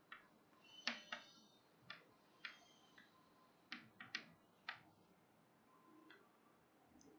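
Chalk tapping and scraping on a blackboard as letters are written: about ten sharp, faint clicks, most of them in the first five seconds.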